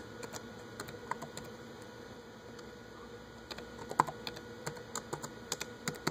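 Typing on a laptop keyboard: a few scattered keystrokes, then a quicker run of key taps from just past halfway, one of them louder about two-thirds in.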